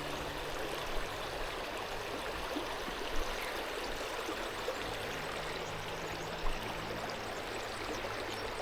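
Creek water running steadily over stones, with a couple of faint brief knocks.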